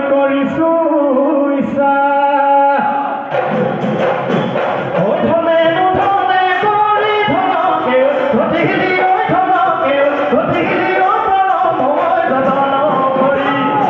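Husori Bihu: a group of men singing in chorus to dhol drums. About three seconds in the music gets fuller, with a steady drum beat under the voices.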